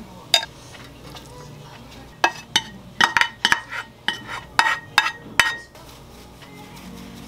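A frying pan and a wooden utensil clinking and knocking against ceramic baking dishes as pasta is pushed out of the pan: one click, then a quick run of about a dozen sharp knocks, some with a brief ring, ending about two seconds before the close.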